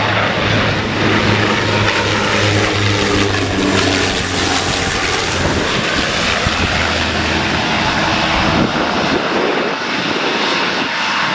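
Irish Air Corps CASA CN-235's twin turboprop engines and propellers droning as it flies low on landing approach. The low propeller hum drops in pitch around the middle as the aircraft passes, then gives way to a broad rushing engine noise near the end as it descends toward the runway.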